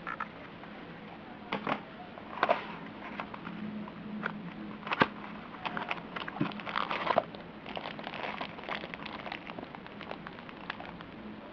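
Handling noise: irregular clicks, taps and crinkles, busiest in the middle, over a steady low hum.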